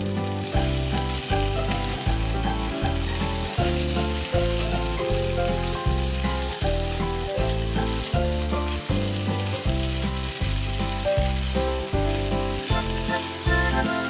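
Pork, potato and onion sizzling as they fry in a non-stick pan, stirred about two-thirds of the way through. Background music with a steady beat plays throughout.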